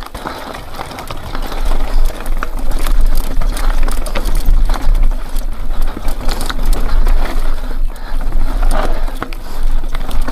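Mountain bike rattling and clattering over rough, rocky trail on a fast descent, with a dense run of knocks and clicks over a heavy low rumble. It gets louder about two seconds in.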